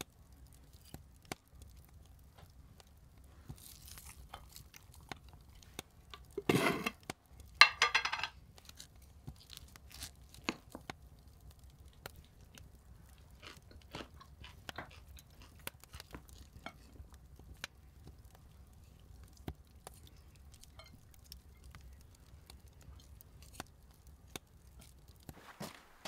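Close-miked eating sounds of a person chewing food, with scattered small clicks and mouth smacks. Two louder crunchy, scraping bursts come about seven seconds in.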